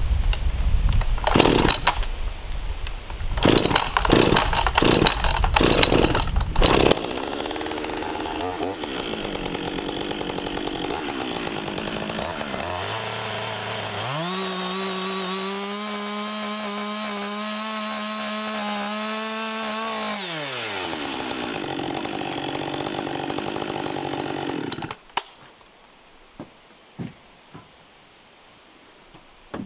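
Two-stroke chainsaw cutting a wooden board. It revs in uneven bursts at first, then idles. It revs up and holds high for about six seconds through a cut, drops back to idle, and cuts off suddenly; a few light knocks follow.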